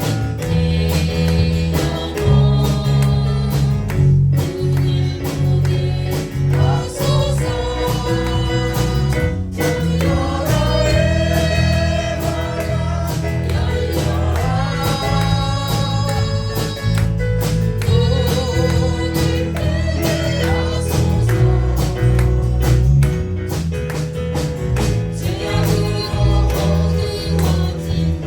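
A gospel-style song with sung vocals over bass, guitar and a steady beat.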